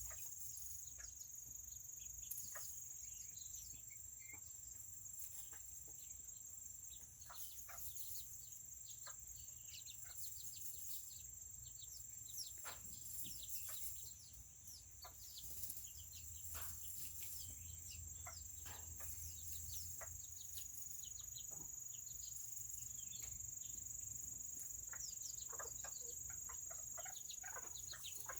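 Serama bantam chickens clucking and chirping in many short, scattered calls, over a steady high-pitched drone.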